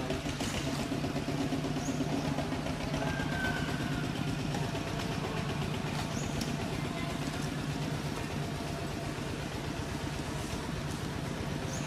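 An engine idling with a steady low hum.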